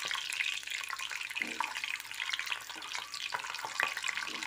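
Boiled eggs frying in hot oil with tempering spices (mustard seeds, cumin, dried red chillies) in a kadai: steady sizzling with dense fine crackling pops.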